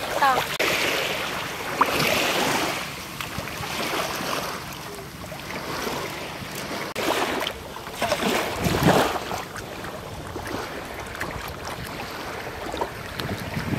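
Small sea waves washing in on the shore, swelling and easing, with wind buffeting the microphone.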